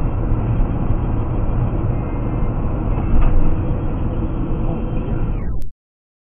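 Steady road and engine noise of a car travelling on an expressway, recorded by a dashcam. It swells slightly about three seconds in and cuts off abruptly into silence near the end.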